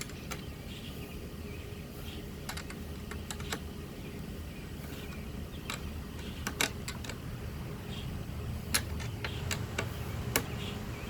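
Scattered light clicks and taps of a wrench on wheelbarrow bolts as they are tightened by hand, about a dozen irregularly spaced over the stretch.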